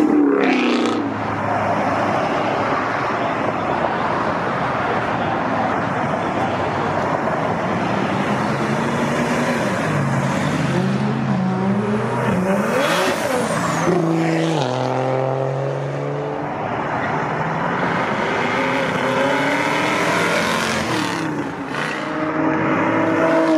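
Performance cars accelerating hard out of a car meet over a steady din of running engines. Their engine note climbs and drops in steps through gear changes about halfway through and again near the end.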